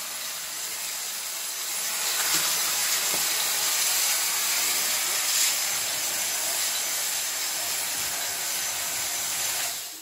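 Dyson cordless stick vacuum running steadily while vacuuming a foam play mat: a loud, airy rush with a thin high motor whine, on a freshly replaced battery that has it working well. It gets a little louder about two seconds in and cuts off just before the end.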